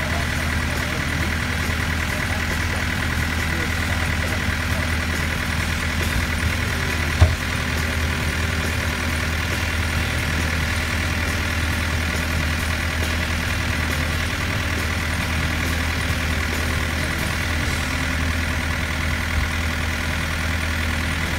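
Sailboat's engine running steadily at low revs, with a single sharp knock about seven seconds in.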